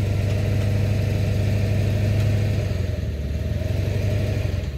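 Tow vehicle's engine running steadily at low speed, pulling a tandem-axle travel trailer forward so its wheels climb onto wooden leveling boards.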